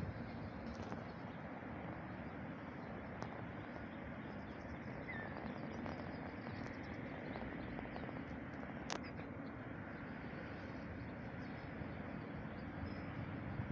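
Outdoor ambience: a steady background hiss with a few faint, brief bird chirps and a single sharp click about nine seconds in.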